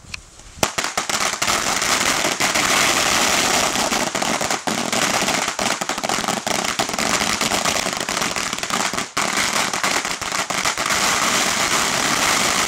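A long string of red Chinese firecrackers going off on the ground: a few separate pops at first, then a dense, unbroken rattle of loud bangs.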